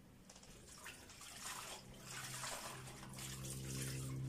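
Hands swishing and splashing lettuce and spinach leaves in water in a plastic bowl in a kitchen sink, in irregular bursts. A low steady hum comes in about halfway through and grows louder.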